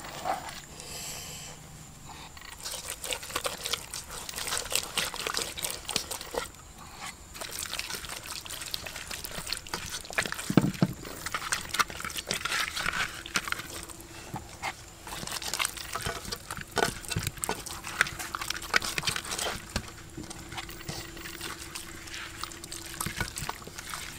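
Wet squelching, smacking and crackling of hands kneading chili paste in a clay mortar, then smearing and rubbing the paste over a whole crocodile in a wok.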